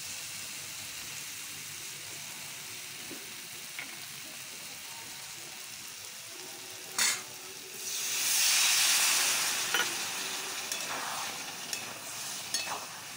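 Spiced potatoes and green tomatoes frying with a steady sizzle in a metal wok-style pan, with a metal spatula stirring and knocking against it. About eight seconds in, water poured into the hot pan sets off a loud burst of hissing sizzle that eases off over a couple of seconds.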